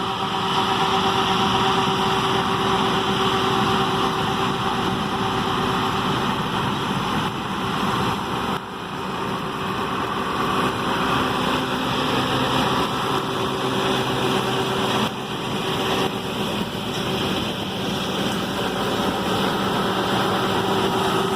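Combine harvester running steadily during the soybean harvest: an even engine and machinery drone with a hissing wash of noise.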